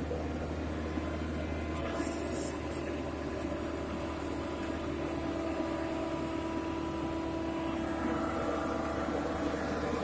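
Horizontal directional drilling rig's engine running steadily under load. A few brief sharp clicks come about two seconds in.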